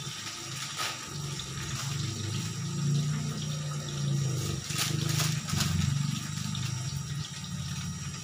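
Water running from a tap into a kitchen sink, with a few brief knocks.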